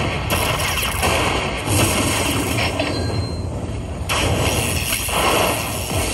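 Lightning Link Sahara Gold slot machine's bonus count-up effects: a run of noisy lightning-zap bursts, a new one every second or two, as each coin value is added to the win meter.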